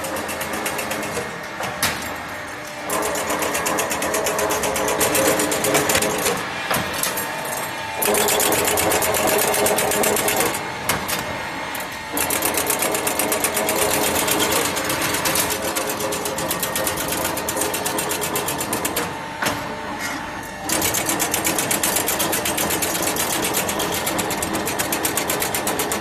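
Crimped wire mesh machine running, making a fast, steady mechanical clatter, with sudden jumps in loudness several times.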